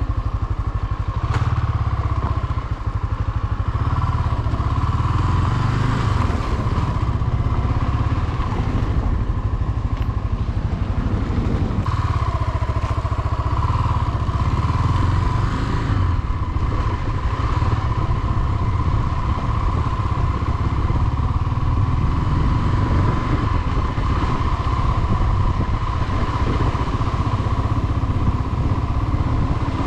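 Small-displacement motorcycle engine running steadily, with no clear revving.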